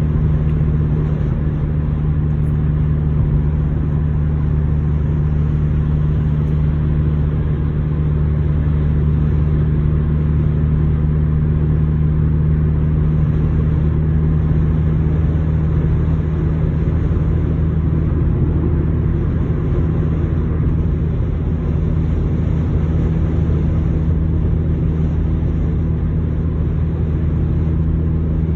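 Car driving at highway speed, heard from inside the cabin: a steady low drone of engine and tyre noise.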